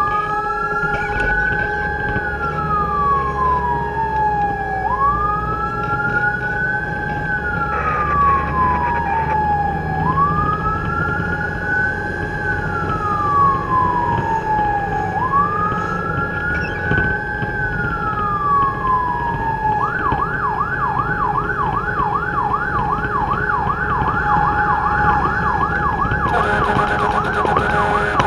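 Fire truck's electronic siren on wail, rising and falling slowly about every five seconds, heard from inside the cab over the engine's rumble. About 20 seconds in, it switches to a fast yelp of roughly three to four cycles a second. A steady tone is held underneath.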